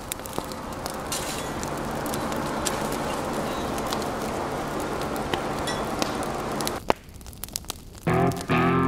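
Wood logs burning in a barbecue pit's firebox, crackling and popping over a steady hiss; it fades in at the start and drops away about seven seconds in, leaving a few pops. Guitar music starts about a second before the end.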